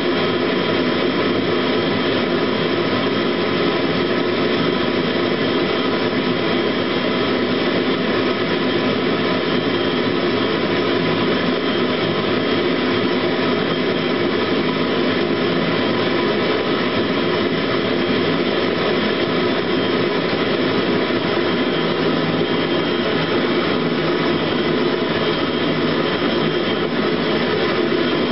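Eberspächer Hydronic D5WZ diesel-fired water heater running steadily on the bench: its combustion-air blower and burner make an even rush, with several constant tones over it.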